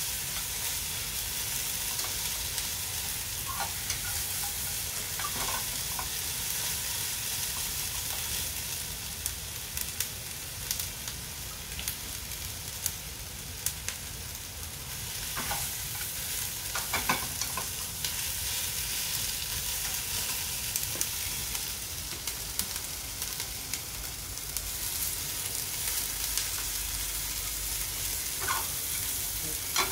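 Food sizzling in a frying pan while being stirred, a steady frying hiss with scattered clicks and scrapes of a utensil against the pan.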